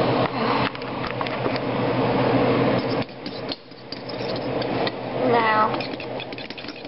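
A fork beating eggs in a bowl: fast scraping and clicking of the metal tines against the side of the bowl.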